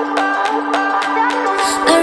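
Background music: an instrumental pop passage of held notes over a steady, light clicking beat, which drops out near the end as the music swells.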